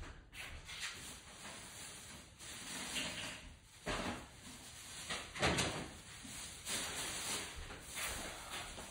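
Rummaging and handling noises: irregular rustling and light knocks as a bag is fetched, with a louder knock about five and a half seconds in.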